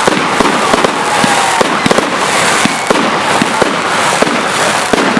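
Professional fireworks display: a dense, unbroken barrage of sharp bangs and crackling shells going off in quick succession.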